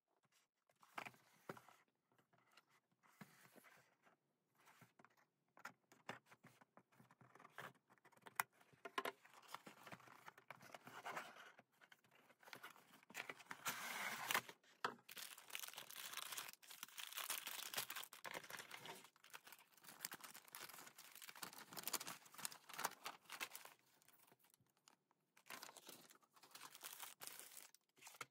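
A cardboard box being opened and handled, with plastic bags of loose building bricks crinkling: irregular rustles, scrapes and light clicks, busiest in the middle.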